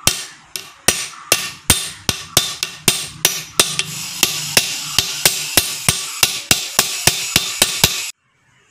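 Hammer blows on a steel socket used as a drift, more than twenty sharp metallic strikes at about three a second, stopping abruptly near the end. They are driving a needle bearing into the pinion housing of a Hyundai Santro Xing power-steering box.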